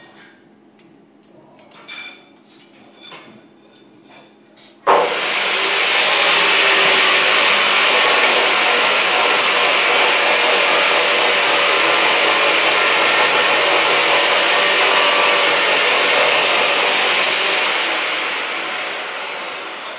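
A handheld torch working on a metal pipe starts with a sharp pop about five seconds in, then hisses loudly and steadily with a high whistle above the hiss, tapering off near the end. A few light taps come before it.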